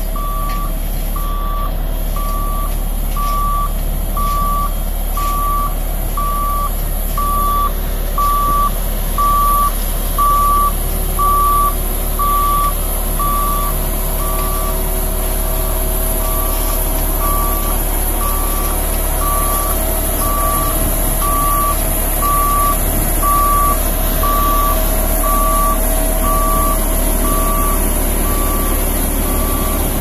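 Reversing alarm of an L&T 1190D single-drum vibratory roller beeping about once a second, one steady tone per beep, over its diesel engine running steadily as it backs up.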